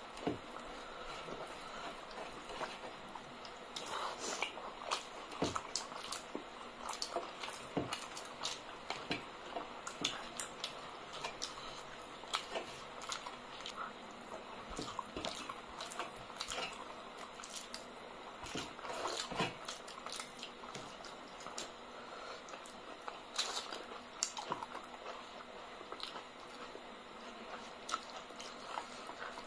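Close-up eating sounds of two people eating rice and curry with their hands: wet squishing as fingers mix the food on metal plates, and chewing with many scattered sharp mouth clicks and smacks.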